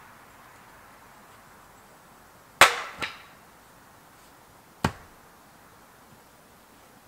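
Three sharp knocks. The first is the loudest and rings briefly, the second follows about half a second later, and a third comes about two seconds after that.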